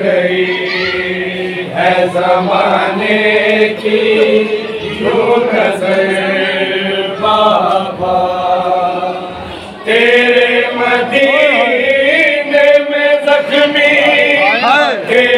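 Men chanting a noha, a Shia lament, as a body of voices with no instruments. The chant drops briefly just before ten seconds in, then returns louder.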